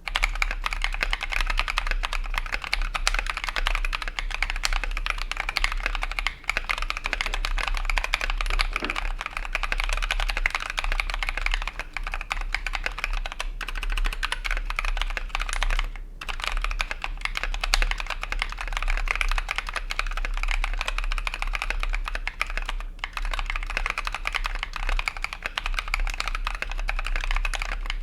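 Fast, continuous typing on a custom mechanical keyboard with lubed NovelKeys Cream linear switches on a brass plate and ABS keycaps, a dense run of key clicks and bottom-outs with a few brief pauses. A steady low hum lies underneath.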